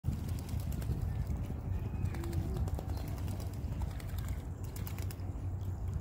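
Wind rumbling against the microphone, with scattered light clicks and a short bird call about two seconds in.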